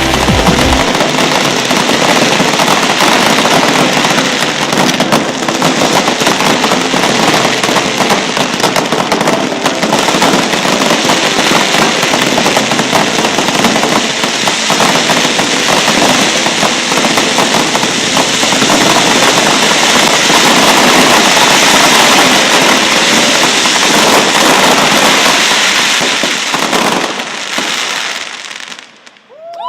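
Fireworks display: a loud, dense, unbroken barrage of bangs and crackling that dies away near the end.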